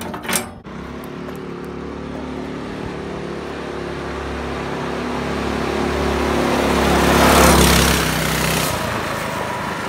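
Predator 212cc single-cylinder engine on an off-road go-kart running steadily as the kart drives past, growing louder as it approaches, loudest about three quarters of the way through, then fading a little as it moves away. The engine is running after a throttle adjustment made to get full power out of it.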